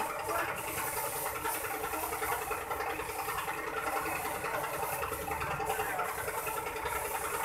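Air compressor running steadily, with an even hum, as used to power a spray gun for priming car body panels.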